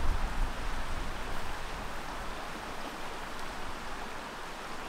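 A backcountry river flowing over stones, a steady rushing, with a low rumble in the first second.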